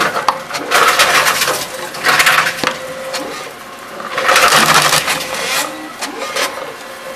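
Tomra T-series reverse vending machine taking in drink containers: its intake spins each container and carries it away in several loud whirring, clattering spells with quieter gaps between them.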